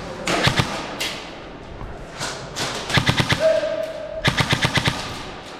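Airsoft guns firing short rapid full-auto bursts: one just after the start, one about three seconds in, and a longer one about four and a half seconds in.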